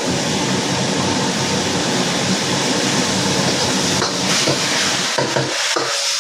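Water spinach being stir-fried in a pan: a steady sizzle with the sound of stirring.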